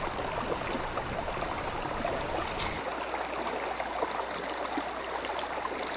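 Shallow river water trickling steadily over stones, with small ticks and splashes scattered through it.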